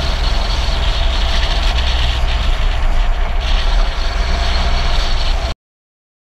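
Steady rush of wind buffeting the microphone over tyre-on-asphalt road noise from a moving follow car, cut off abruptly to total silence about five and a half seconds in.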